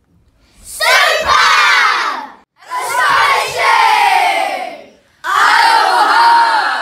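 Groups of schoolchildren shouting a farewell together in unison, three separate loud shouts in a row, each falling in pitch.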